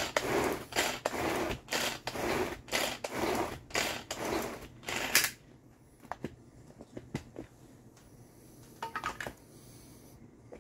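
A Tupperware SuperSonic pull-cord chopper being pulled again and again, about two pulls a second. Each pull is a short whirring rush as the blades churn frozen fruit into ice cream. The pulls stop about five seconds in with a sharp click, followed by a few light plastic clicks.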